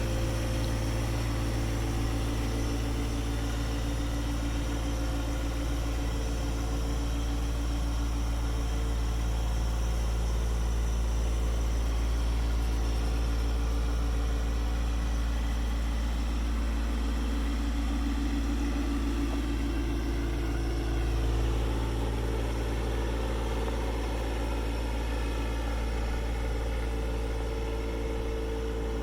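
John Deere 1025R subcompact tractor's three-cylinder diesel engine running steadily. Its note shifts briefly a little past the middle.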